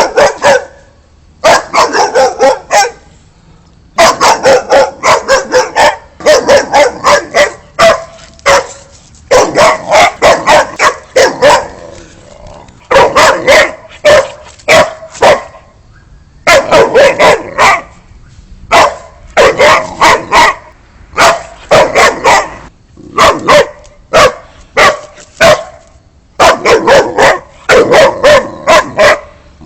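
Boxer dog barking in quick runs of several loud barks, with short pauses between runs.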